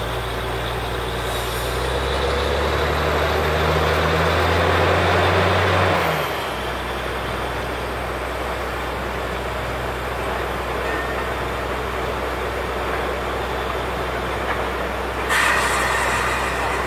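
Truck-mounted borewell drilling rig running: its diesel engine drones steadily, rises in pitch and loudness for a few seconds, then drops back about six seconds in. Near the end a short hiss of air bursts out for about a second.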